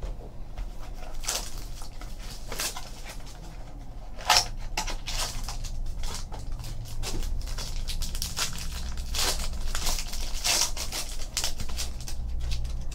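Foil wrapper of a Topps Museum Collection trading-card pack crinkling and tearing as it is opened by hand, in a run of irregular sharp rustles, the loudest about four seconds in.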